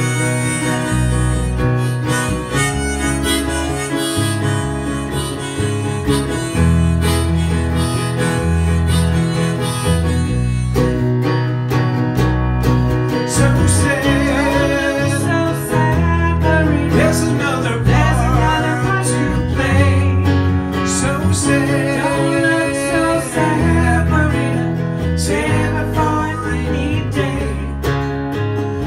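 Instrumental break of a song: a harmonica playing a wavering melody over a strummed acoustic guitar.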